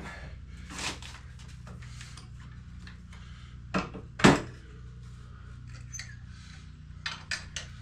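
Sharp metallic clinks and knocks of tools and hardware being handled: a few single strikes, one much louder about four seconds in, and a quick run of light clicks near the end, over a steady low hum.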